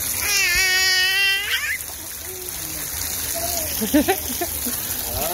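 A toddler's long, high-pitched squeal of delight near the start, over the steady patter of water runoff dripping and splashing off a rock ledge. A few short babbling or laughing sounds follow around four seconds in.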